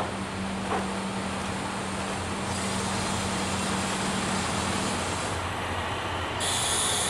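KiHa 185 diesel railcar train easing to a stop alongside the platform, its diesel engines running with a steady low hum. There are two short, sharp sounds near the start, and a high hiss comes in partway through and grows stronger near the end.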